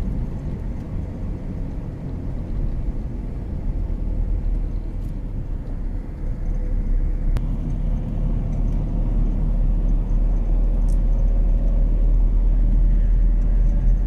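A car driving steadily on a paved road, heard from inside the cabin: a continuous low engine and road rumble that grows somewhat louder in the second half.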